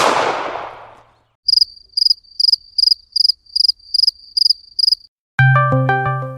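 Cricket chirping: a high-pitched chirp repeated about ten times, roughly three a second. Before it, a loud noisy hit dies away over the first second, and near the end music with struck keyboard-like notes begins.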